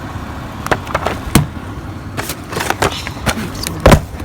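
Rummaging through a pile of discarded items: an irregular series of clatters, knocks and rustles as things are picked up and moved, with a loud knock near the end.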